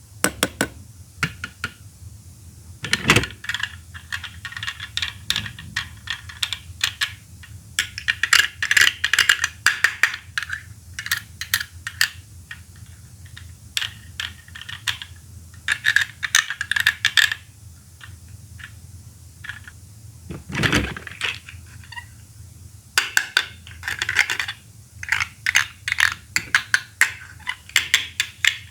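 Plastic toy Poké Balls clicking and snapping, in quick clusters of sharp plastic clicks and rattles with short pauses between. Twice there is a duller knock.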